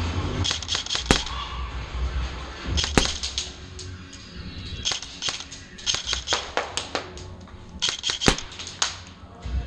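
Airsoft guns firing in four short bursts of rapid snapping shots, with the clacks of BBs striking. The bursts come near the start, about three seconds in, twice in quick succession a little past the middle, and again near the end.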